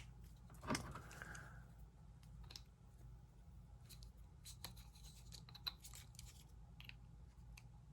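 Faint small clicks and scrapes of a lock and metal tools being handled as the lock is taken apart after picking.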